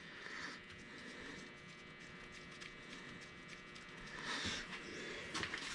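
Faint handling noises: light taps and rubbing, with two short, slightly louder scuffs near the end, over a faint steady hum.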